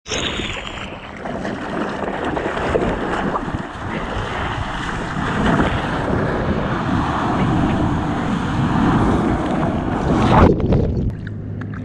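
Ocean surf and rushing water while riding a wave on a longboard, with wind on a mouth-held GoPro's microphone. Near the end a loud rush of whitewater hits as the surfer goes into the breaking wave, and the sound then turns muffled and quieter.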